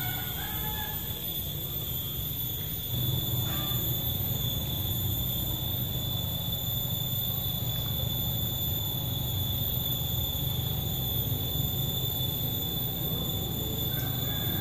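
A steady high-pitched whine over a low hum; the hum gets louder about three seconds in.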